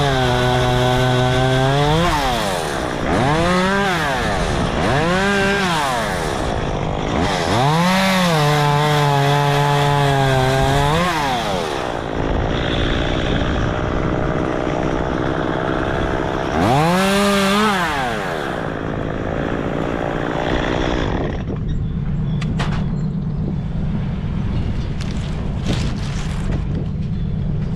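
Chainsaw cutting dead branches, its engine revving up and dropping back five times in short bursts. From about three-quarters of the way in it settles to a lower steady running sound with a few sharp clicks.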